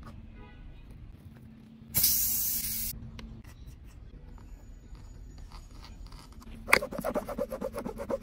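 Air hissing out of a punctured motorcycle tyre for about a second as the object is pulled from the tread with pliers. Near the end comes a rapid run of rubbery creaks and clicks as the plug insertion tool is forced into the puncture.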